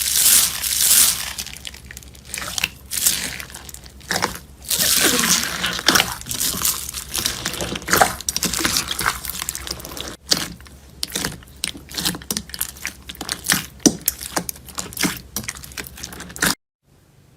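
Slime being squeezed and worked by hand, giving dense crackling, clicking and popping with some wet, sticky noise. The sound breaks off briefly about ten seconds in and again near the end.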